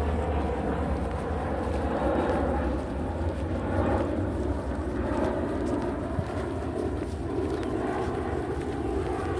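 Footsteps while walking, many short scuffs and steps, over a steady low rumble.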